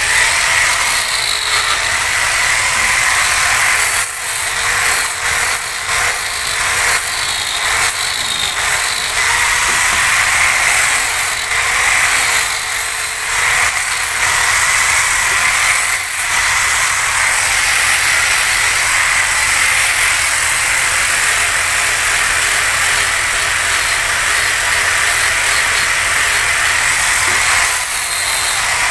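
Electric angle grinder running steadily with a high whine, its disc grinding and shaping a wooden saw handle. The sound flickers as the disc bites the wood.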